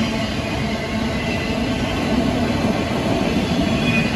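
CN 273, a Canadian National freight train, rolling past on the rails: a steady, loud rumble of wheels and cars, with faint high wheel squeals now and then.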